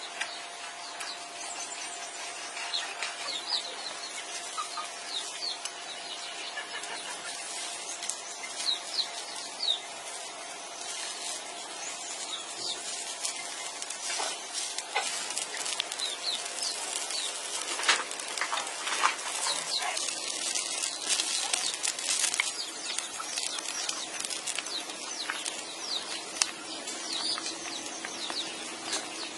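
Chopsticks clicking and knocking as pieces of pig's feet are lifted into a clay pot of papaya broth, with a couple of sharp knocks past the middle, and the broth bubbling in the pot. Birds chirp in the background throughout.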